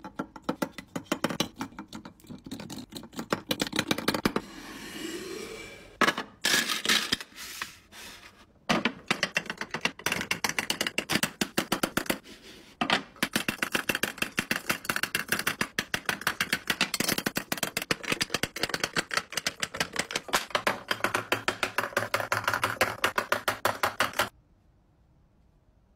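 Rapid, dense clicking and tapping of plastic lipstick tubes and long fingernails against clear acrylic makeup organizers as lipsticks are handled and set in place. The clicking comes in runs with short pauses and stops suddenly near the end.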